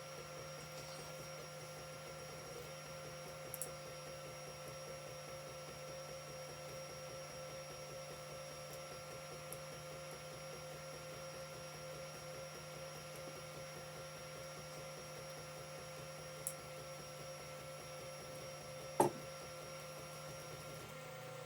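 Creality CR-10 3D printer running a print: a faint steady whine of its motors and fans, with a few light clicks, the sharpest near the end.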